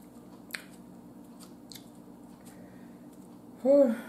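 Eating sounds: soft wet mouth noises and a sharp click about half a second in, then near the end a short hummed "mm" that rises and falls in pitch. A steady low hum runs underneath.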